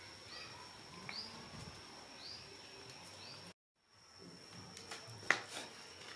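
Faint background sound: a steady high-pitched whine with short, faint falling chirps about once a second, cut off briefly about three and a half seconds in, then a single sharp click about five seconds in.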